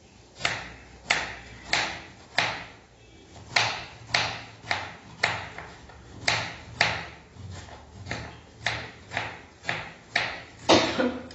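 Kitchen knife chopping bitter gourd on a wooden cutting board: a run of sharp knocks, about two a second and unevenly spaced, with a heavier knock near the end.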